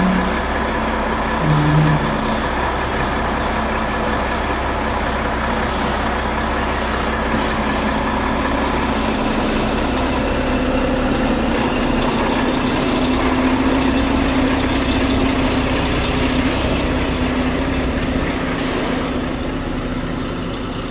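Volvo FH4 truck's diesel engine running steadily, its note rising slightly partway through, with short hisses now and then; no knock, the camshaft now replaced.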